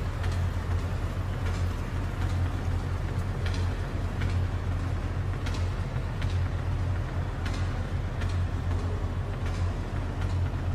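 Steady low rumble of an indoor swimming-pool arena, with faint sharp ticks every second or two.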